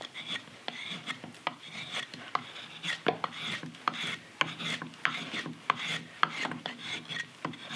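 Hand edge tool shaving green sycamore in repeated short strokes, a scraping rasp with sharp clicks as the blade catches and leaves the wood. Near the end the cut is starting to tear into the grain.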